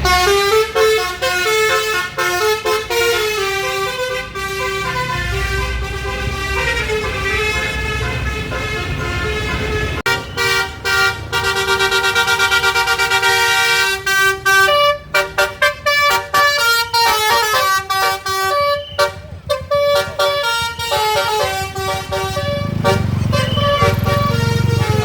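Indonesian bus 'basuri' telolet musical horns playing melodies of stepped notes, a new tune starting about ten seconds in and breaking into rapid short toots in the middle. A bus engine runs underneath near the end.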